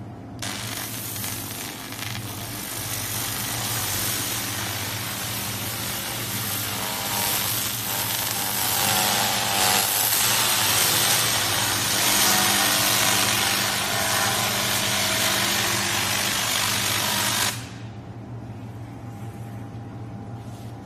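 2000 W handheld fiber laser cleaning head ablating rust off a steel cylinder: a loud hiss starts about half a second in, swells, and cuts off suddenly near the end as the laser stops firing. A steady low hum runs underneath.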